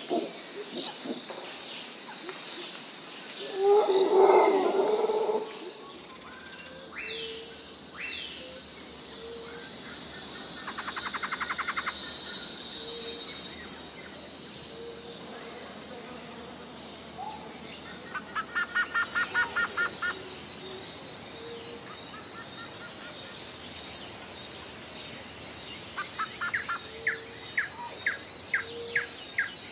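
Bush ambience: several birds chirping and trilling over a steady high insect drone, with a low short call repeating every second or two through most of it. A louder, rough sound lasting about two seconds comes around four seconds in.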